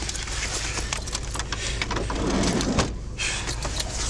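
Rustling, clicks and knocks of people moving about inside a car's cabin over a steady low rumble, with a louder scraping stretch about two seconds in.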